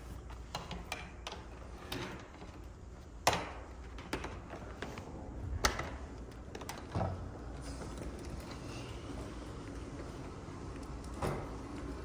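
Commercial upright vacuum cleaner running over carpet while it is manoeuvred along wooden door frames, with several sharp knocks and clatters as the head and handle bump about; the loudest come about three and five and a half seconds in.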